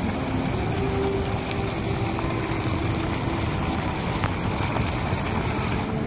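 Indoor fountain's water jets splashing steadily into the pool, with faint voices in the background.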